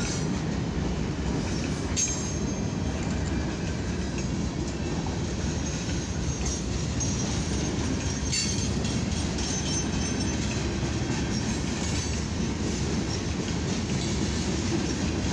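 Freight cars of a mixed freight train rolling past at about 29 mph: a steady rumble of steel wheels on rail, with a few sharp clacks over the rail joints.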